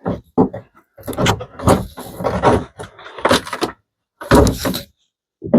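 Irregular knocks, scrapes and creaks of old plywood being pried and broken away from around a sailboat's stern tube, in short separate bursts with sudden stops.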